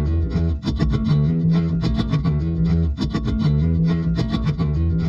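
Background music with distorted electric guitar over a steady bass line and beat.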